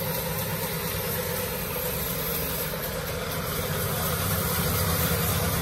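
An engine running steadily at idle, a low even hum that grows a little louder near the end.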